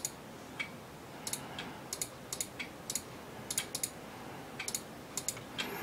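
Light, irregular clicks of a computer keyboard and mouse, spread through the whole stretch.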